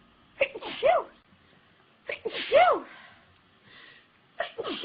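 A young woman sneezing three times, about two seconds apart, each sneeze a sharp catch of breath followed by a high voiced cry that rises and then falls in pitch.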